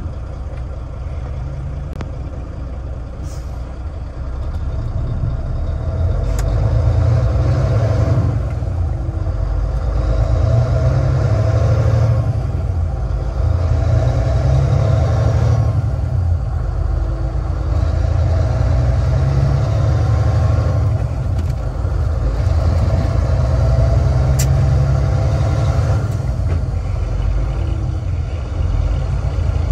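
Volvo D12 inline-six diesel of a semi truck heard from inside the cab, pulling hard as the truck gathers speed. The engine note drops briefly every few seconds as the 13-speed Eaton manual transmission is float-shifted up through the gears without the clutch.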